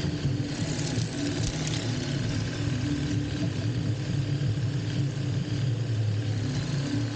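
Steady low rumble of a rail bike's wheels rolling along steel rails, with a lasting low hum.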